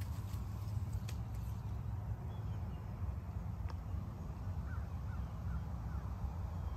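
Outdoor background with a steady low rumble, and a bird calling about four short rising notes, evenly spaced, about five seconds in.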